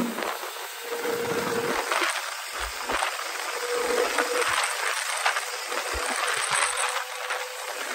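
Kawasaki ZX-25R's 250 cc inline-four engine running on the move, with a high exhaust note under a steady rushing hiss of wind and road noise and a few short crackles.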